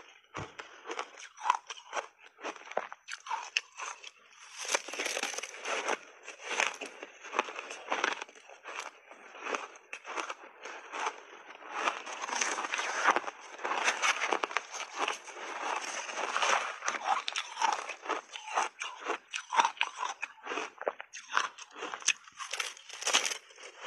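Refrozen shaved ice coated in matcha powder being bitten and chewed close to a clip-on microphone: crisp crunches one after another, thickening into long runs of dense crunching twice in the middle.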